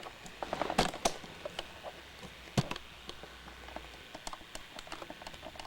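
Small plastic LEGO pieces clicking and rattling as they are handled: a patter of light clicks, with a few louder knocks about a second in and near the middle.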